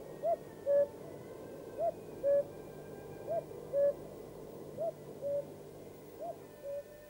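A cuckoo calling its two-note call, the first note higher than the second. It calls five times about a second and a half apart, growing fainter toward the end.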